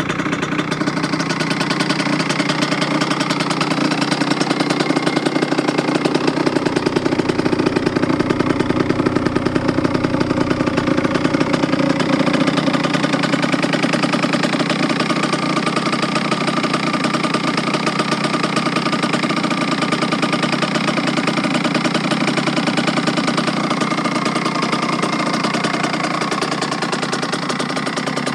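Kawasaki KX80's single-cylinder two-stroke engine running steadily at idle with a fast, even popping beat, freshly rebuilt top and bottom end with a new piston and crank.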